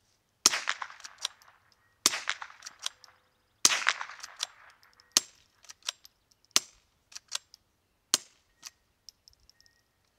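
Six suppressed shots from a PWS Summit 22 rimfire rifle fitted with a Surefire Ryder 22-A suppressor, about a second and a half apart. The first three, with CCI Mini-Mag supersonic ammo, each have a sharp report and a long ringing tail. The last three, with subsonic American Eagle suppressor ammo, are shorter and drier, with lighter clicks between the shots as the manual cocking lever cycles the action.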